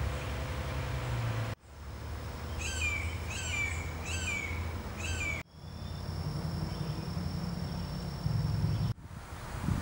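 A bird calls four times, about half a second apart, each a clear note sliding downward, over a steady low rumble. The sound cuts out abruptly twice, and after the calls a thin steady high tone runs for a few seconds.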